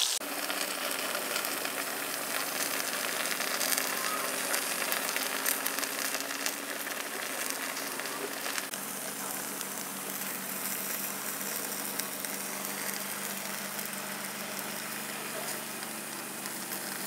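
Whole bass sizzling in a wire basket on a grill, a steady hiss of fat and juices cooking, with a steady low hum underneath.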